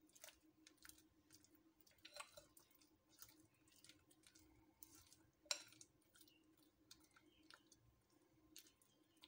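Faint wet squishing and scraping of a spatula folding cream and sliced bananas in a glass bowl, with one sharper click about five and a half seconds in.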